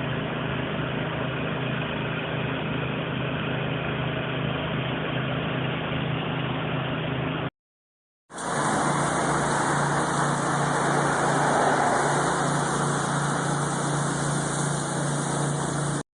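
Engine-driven hot-water pressure washer running: a steady engine hum under the hiss of the spray. It cuts off suddenly about seven and a half seconds in, and after a short silence the same running and hiss resume, brighter.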